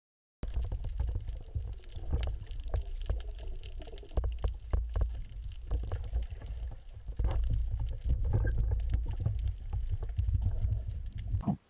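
Underwater recording from a diver's camera: a steady low rumble of water moving around the camera housing, with many sharp clicks and crackles throughout, cutting off abruptly near the end.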